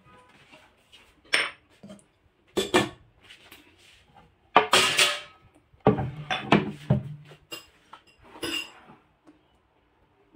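Ceramic saucer and bowl clinking and being set down on a kitchen counter, with a wooden chopping board knocked into place: a run of separate clatters and knocks, the loudest about four and a half seconds in.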